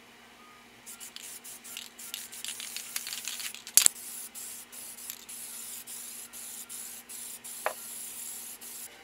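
Rust-Oleum Appliance Epoxy aerosol spray can spraying paint, first in short hissing bursts, then in longer passes with brief breaks, stopping just before the end. A sharp click sounds about four seconds in.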